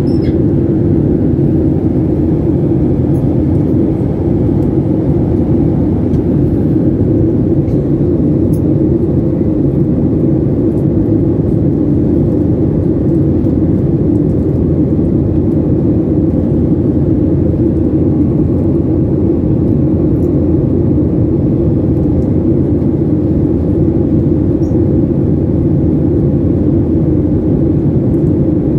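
Steady cabin drone of a Boeing 737-800 in flight, heard from a window seat: an even, deep mix of jet engine and airflow noise with no change throughout.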